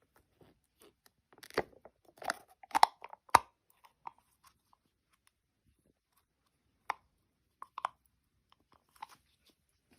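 Crisp crunches of something being bitten and chewed, as a handful of sharp cracks: a cluster of loud ones between about one and a half and three and a half seconds in, then a few scattered ones later.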